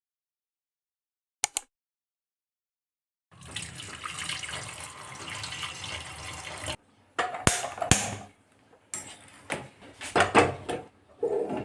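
Water running from a kitchen tap for a few seconds, stopping abruptly, followed by a series of sharp knocks and clatters.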